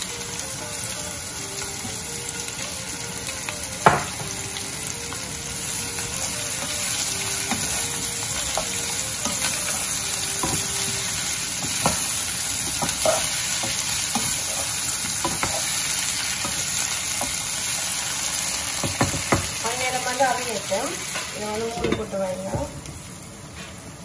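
Potato strips and peppers sizzling as they fry in a saucepan, with a wooden spoon stirring and knocking against the pan now and then. The sizzling becomes quieter near the end, once a glass lid is on the pan.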